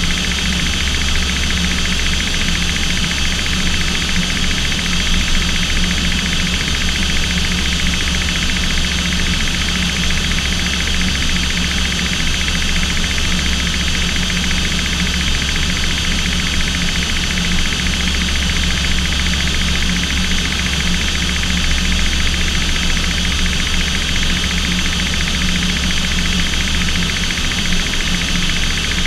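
Steady drone of an aircraft's engines heard from inside the cockpit in level flight: a strong low hum with several steady whining tones above it, unchanging throughout.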